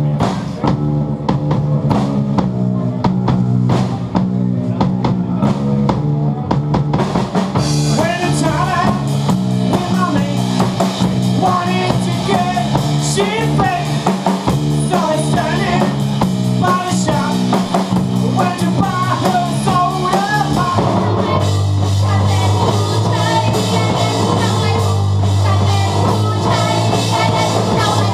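Live rock band playing: electric guitar over a drum kit, loud and continuous. A higher, wavering melodic line joins about eight seconds in, and about 21 seconds in the low part drops to a heavier, lower note.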